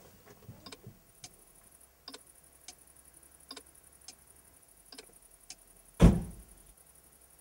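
Faint, sharp clicks about every three quarters of a second, then a single heavy thump about six seconds in that dies away over half a second.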